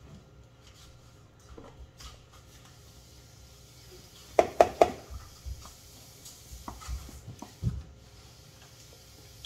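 Kitchen handling sounds as a spatula scrapes Cool Whip out of its plastic tub into a plastic mixing bowl, with scattered light knocks. About four and a half seconds in come three quick sharp taps, the loudest sounds here.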